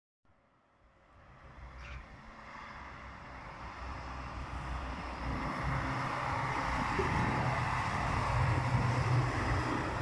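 Single-car SNCF X 73500 diesel railcar running past, its engine drone and rolling noise growing steadily louder as it comes nearer.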